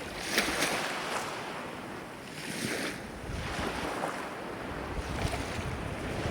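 Ocean surf washing in, its rushing hiss swelling and fading about three times as waves break and spread.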